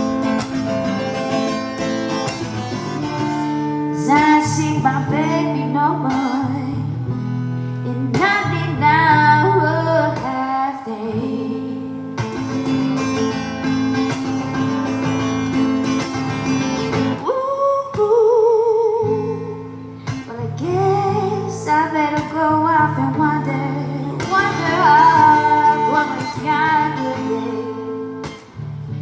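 A singer performing with a strummed acoustic guitar, the voice holding one long note with vibrato about 18 seconds in.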